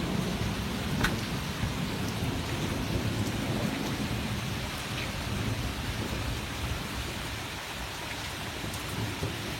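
Heavy thunderstorm rain pouring steadily, with a low rumble of thunder that fades over the first few seconds.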